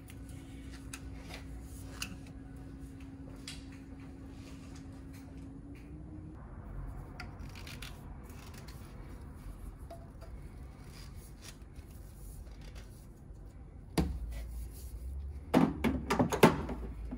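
PVC drain pipe being handled and fitted against a wooden cabinet: faint clicks and rubbing, then a thump and a quick run of knocks and scrapes near the end as the pipe rubs along the cabinet side. A faint steady hum stops about six seconds in.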